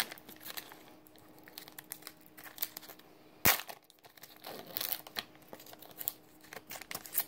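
Japanese Pokémon card booster pack's foil wrapper crinkling and tearing as it is worked open by hand, with scattered crackles and one loud sharp crack about three and a half seconds in; the pack is hard to tear open.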